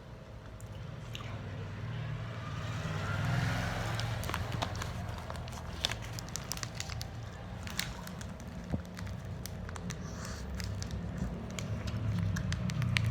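Crinkling and sharp clicking of plastic snack packaging being handled, over a steady low hum.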